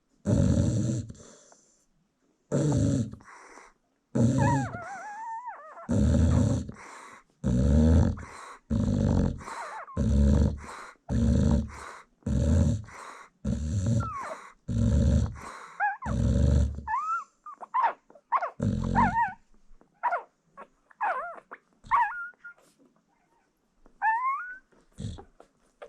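American Bully mother dog snoring in a steady rhythm, about one snore a second, the snores stopping near the end. Thin high squeaks and whimpers from her newborn puppies come through, more often once the snoring stops.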